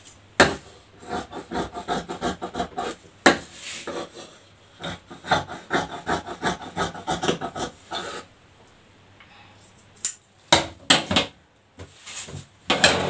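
Fabric scissors snipping through cotton cloth in quick repeated cuts, with the cloth rustling. A few sharp knocks near the end.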